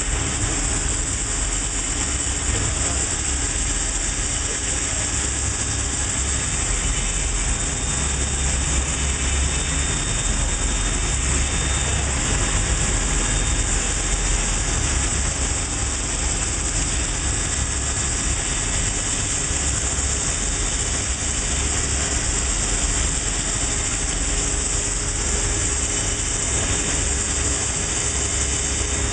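Butler Newall CNC strut grinder running: the grinding wheel working a shaft turning in the chuck. A steady hiss over a low rumble, unchanging throughout.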